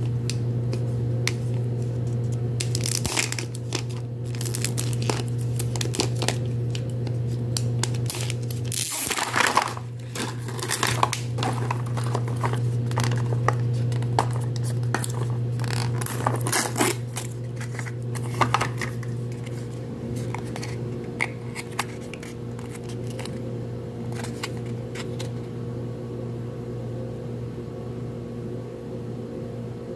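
A blue plastic Mini Brands capsule being handled and pried apart: clicks, snaps and plastic rubbing, with wrapper crinkling. This is busiest in the first two-thirds and calms near the end. A steady low hum runs underneath.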